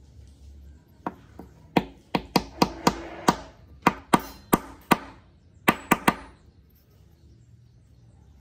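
Wooden tobacco-pipe stem knocked end-down against a workbench, about fifteen sharp knocks in uneven runs, driving the stem home into the pipe's silver fitting.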